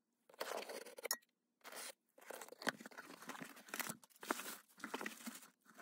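A cardboard shipping box being opened by hand: packing tape ripped and cardboard flaps pulled back in two short bursts, then plastic air-pillow packing and plastic wrap crinkling as the contents are handled.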